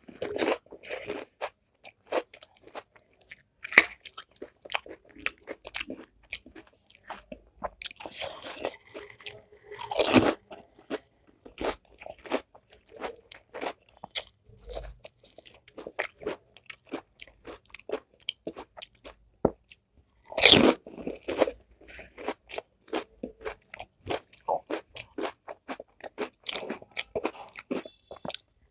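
Close-up crunching and chewing as crisp, hollow panipuri shells are bitten and cracked open one after another. A rapid patter of small crackles runs throughout, with a few louder full-mouth bites.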